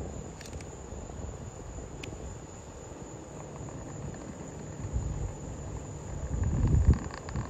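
Night insects chirring in one steady high tone over a low rumble, which swells with a few heavier thumps near the end.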